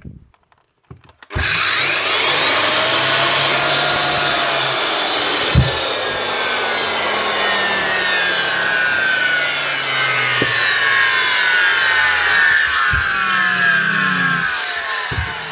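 Old Ryobi electric router switched on about a second in and running with a harsh, rough noise, its pitch sinking slowly in the second half: the sound of worn-out motor bearings.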